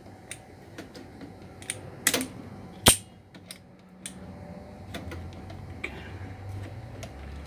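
Scattered sharp metallic clicks and taps of locking pliers working on the centrifugal starter switch of a Myers 2C200 pump motor, the loudest a single sharp click near the middle.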